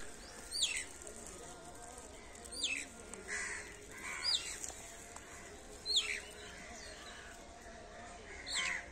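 Birds calling: a sharp, high whistle sweeping steeply downward, repeated five times, with crows cawing in between.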